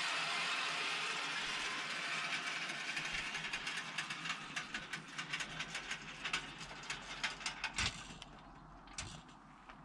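Mechanical ratcheting: a rapid run of sharp clicks, as from a pawl or gear train, over a rushing noise that fades away. The clicks thin out to a last few near the end.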